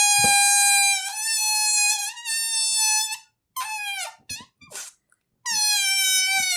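Rubber balloon squeaking: a long, high, steady squeal with a wavering pitch that breaks off about three seconds in. A few short squeaks follow, then after a brief pause a long squeal starts again, a little lower.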